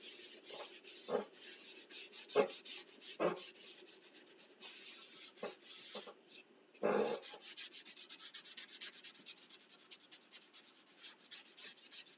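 A paint-soaked baby wipe rubbed across laser-cut wood in quick repeated swiping strokes, with a few louder soft knocks, the loudest about seven seconds in. The thinned paint goes on like a stain.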